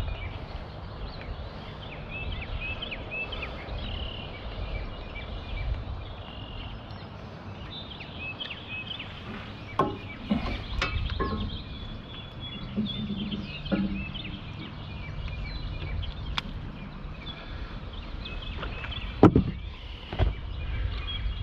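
Outdoor riverside ambience: a steady low rumble of wind on the microphone, with small birds chirping again and again. A few sharp knocks and clicks of handling in the boat stand out, the loudest about 19 seconds in.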